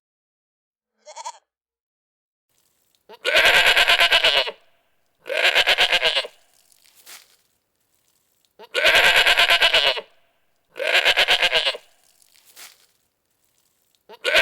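Goats bleating: a short faint call about a second in, then loud wavering bleats in two pairs, with another bleat starting near the end.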